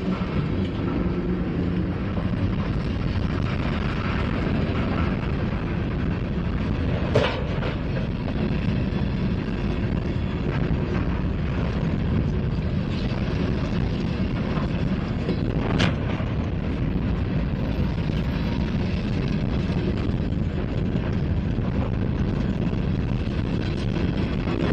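Freight train of covered hopper cars rolling past: a steady noise of steel wheels on rail, with two brief sharp clanks, about seven and sixteen seconds in.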